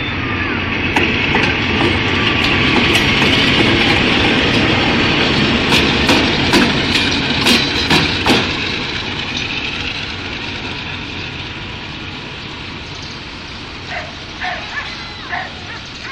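Philippine National Railways diesel-electric locomotive DEL 914 passing slowly at close range. Its engine and running gear swell to a peak and then fade as it moves away, with a string of sharp metallic clanks from the wheels on the track about six to eight seconds in. Near the end a dog barks several times.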